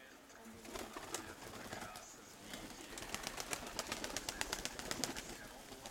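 Domestic pigeons cooing, with a run of quick light clicks in the middle.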